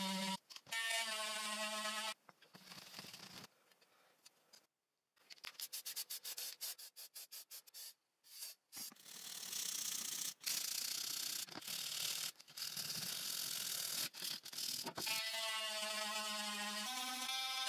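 Cloth rubbing polish over a brass nameplate in quick back-and-forth scrubbing strokes, with a few short pauses. A steady humming tone is heard briefly at the start and again near the end.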